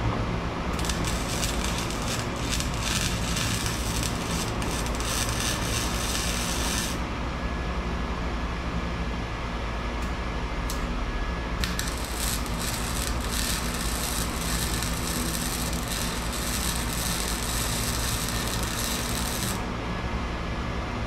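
Wire-feed (MIG) welder arcing on a steel exhaust pipe with a steady crackling sizzle, in two runs. The first starts about a second in and lasts about six seconds; the second starts about five seconds later and lasts about eight seconds. A steady low hum runs underneath.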